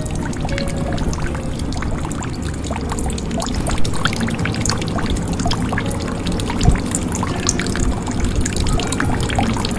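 Water pouring and trickling into a jug: a steady splashing gurgle dotted with many small drips and plinks, with a couple of louder plops.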